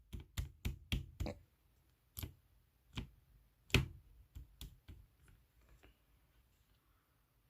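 Slime clicking and popping as it is played with: a quick run of about four sharp clicks a second, then slower single clicks, the loudest just before four seconds in, growing faint near the end.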